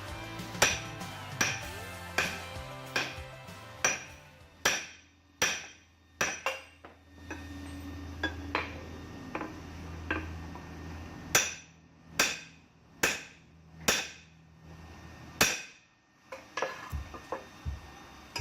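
Forging hammer blows ringing on hot steel and anvil, about one sharp ringing strike a second in runs with a brief pause midway, over background music.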